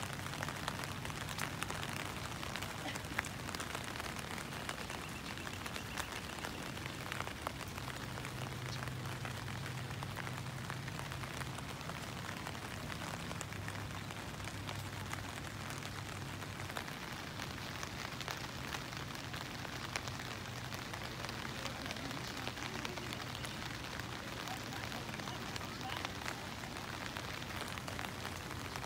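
Steady rain pattering, with many small drop ticks, over a low steady hum.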